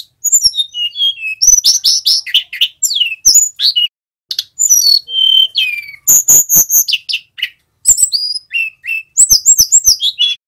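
Male hill blue flycatcher (tledekan gunung) singing a fast, varied run of high whistled notes, slurs and trills with short pauses and some sharp clicking notes: the rolling 'ngerol' style of song.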